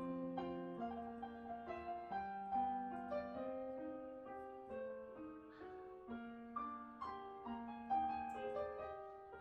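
Background piano music: a melody played over a lower line of notes, several notes sounding together and changing every half second or so.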